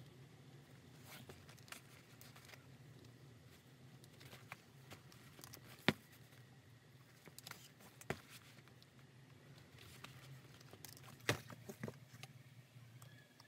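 Quiet handling of a stitched fabric bag panel on a work board: soft rustling of the cloth, with a few sharp light taps and knocks, the loudest about halfway and a couple more near the end, over a low steady hum.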